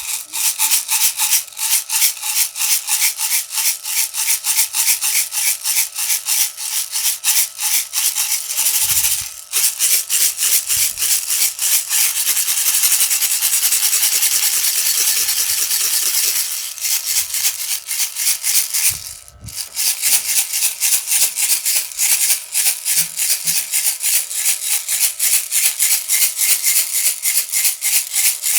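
Baby's rattle toy being shaken in a steady rhythm, several shakes a second. Twice it pauses briefly, and in the middle it is shaken fast enough to blur into a continuous rattle.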